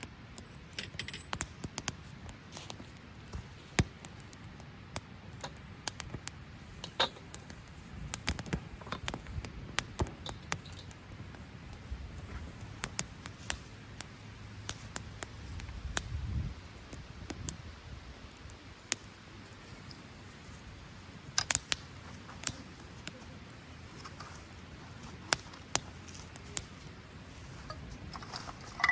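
Campfire crackling, with irregular sharp pops and snaps over a low steady rush, and a quick run of pops a little after the middle.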